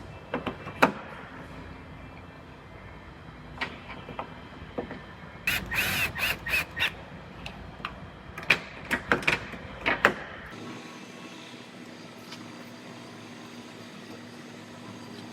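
Scattered clicks, knocks and clatter of hand tools and car body parts being handled and fitted during reassembly, busiest in two flurries in the middle. About ten and a half seconds in the sound changes to a steady low hum.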